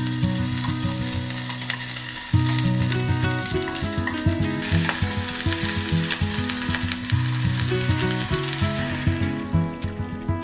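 Onion, then carrot and potato pieces sizzling in hot oil in a small saucepan as they are stirred with wooden chopsticks. The sizzle dies down near the end. Soft background music plays underneath.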